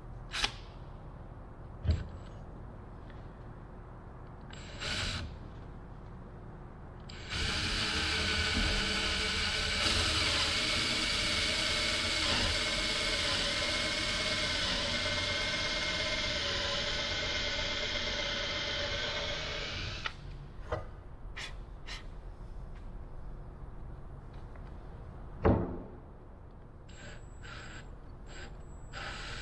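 Cordless drill running steadily for about twelve seconds as it bores a hole through the wooden airframe, its pitch dipping slightly now and then under load. A few sharp knocks come before and after it.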